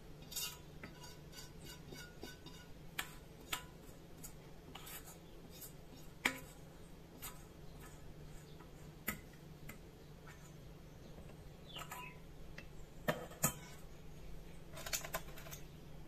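Scattered light clinks and taps of a stainless steel bowl and a small glass jar being handled while melted candle wax is poured, about a dozen sharp ticks with a brief ring on some, over a faint steady hum.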